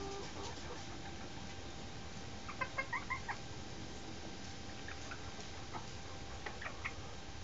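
A chicken clucking: a quick run of about six short, high clucks a little over two seconds in, then a few scattered single clucks near the end.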